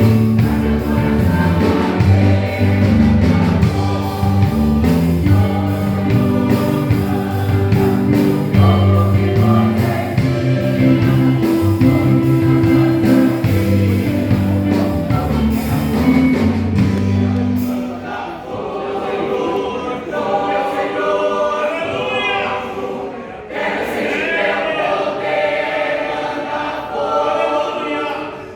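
Church choir singing a gospel song over instrumental backing with a bass line. About two-thirds of the way through, the low accompaniment drops away and the voices carry on nearly alone.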